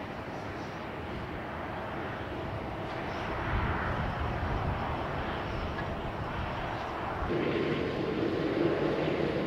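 Jet airliner engines running, a continuous rushing noise that swells a few seconds in. Near the end it grows louder, and a steady hum joins it.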